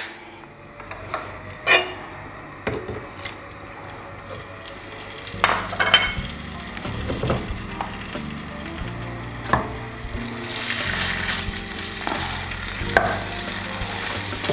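Raw chicken pieces frying in hot ghee in a nonstick pan, stirred with a wooden spoon: knocks and scrapes of the spoon against the pan, with sizzling that grows louder about two-thirds of the way through as the chicken starts to brown.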